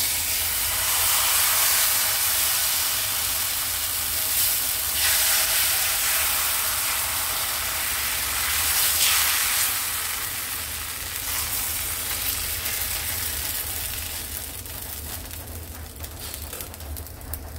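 Rice dosa batter sizzling on a hot, oiled non-stick frying pan as it is poured and spread with a ladle. The sizzle is strongest in the first half and slowly dies down.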